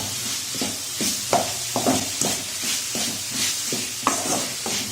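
Spatula stirring and scraping lamb intestine pieces with the freshly added masala powder in a frying pan, about two strokes a second, over a light sizzle.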